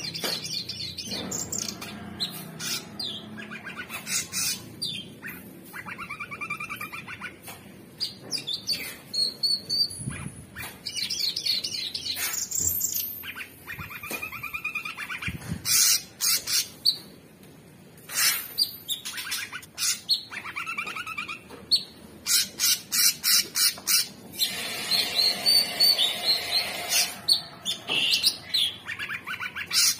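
Male orange-bellied leafbird singing a long, varied song of sharp whistled notes, rapid strings of repeated notes and scratchy chatter, densest near the end.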